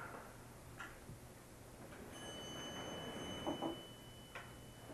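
Faint room sound with a low steady hum and a few soft clicks; about two seconds in a steady high-pitched tone starts and holds for nearly three seconds.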